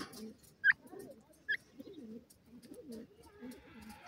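Birds calling: low, wavering coos repeat throughout, with a short high chirp about two-thirds of a second in and another at a second and a half. Faint ticks come as a grey francolin pecks at food on the ground.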